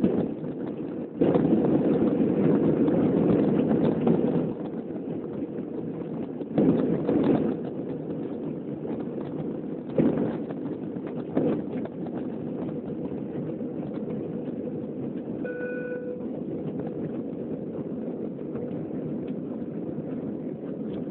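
Airliner cabin noise during the takeoff roll and lift-off: a steady low rush of jet engines and airflow, louder for a few seconds near the start, with a few knocks and a brief faint beep about fifteen seconds in.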